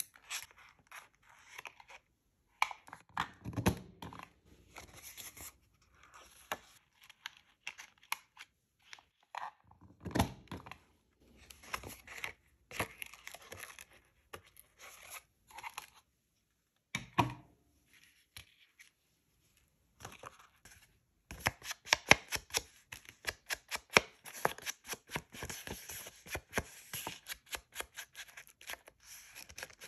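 Paper being handled by hand on a desk: crisp rustling and tearing, with three low thumps of things set down, and a denser run of quick crisp clicks in the last third.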